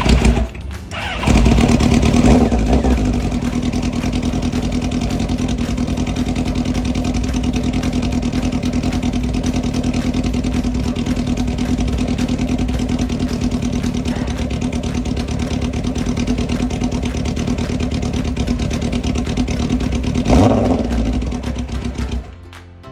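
Kawasaki ZX10 motorcycle's inline-four engine catches about a second in and runs steadily. It gives a brief rev near the end, then cuts off.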